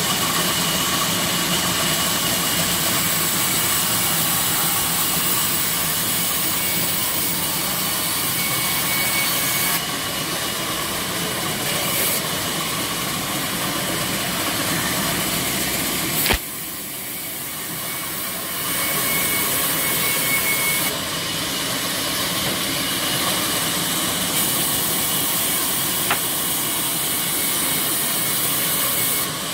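Belt-driven sawmill saws running steadily with a loud, hissing machine whir. There is a sharp knock about sixteen seconds in, and the noise dips for a couple of seconds before picking up again.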